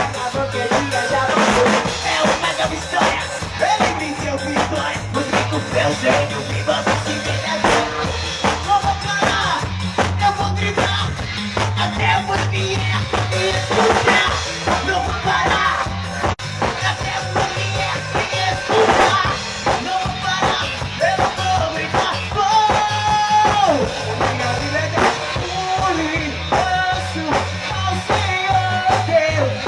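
A band playing an instrumental passage: drum kit with snare and bass drum keeping a steady beat under a bass line and a melodic lead.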